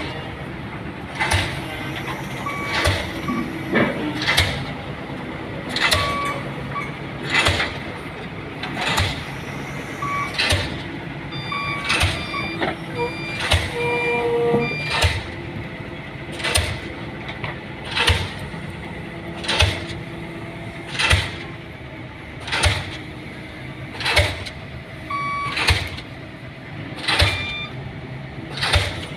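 Diesel pile hammer (DD 55) striking a concrete pile in a steady rhythm, one sharp blow about every second and a half, over the low running of the crane's engine.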